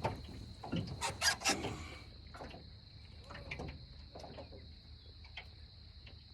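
A few sharp knocks and clatter, the loudest in the first two seconds, then scattered faint ticks, over a steady faint high hum.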